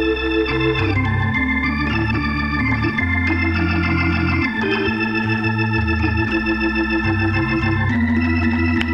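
Electric organ solo with a band: held, full chords that change every second or so over a bass line stepping from note to note.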